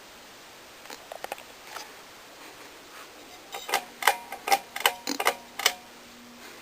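Irregular sharp clicks and clacks, a few at first and then a loud rapid cluster in the second half. A low steady hum from the ceiling fan's motor sets in about three and a half seconds in.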